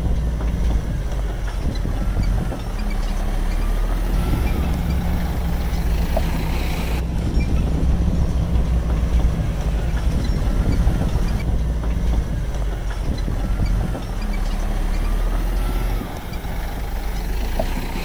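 Bulldozer's diesel engine running steadily under load, a continuous low drone.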